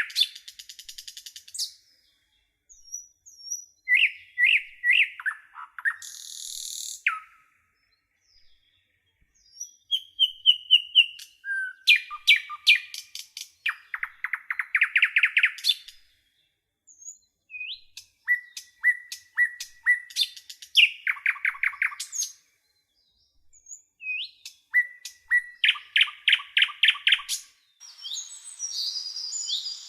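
A songbird singing in separate phrases of fast repeated notes, trills and short whistles, with clear pauses between phrases. Near the end, a different recording with steady hiss and denser chirping comes in.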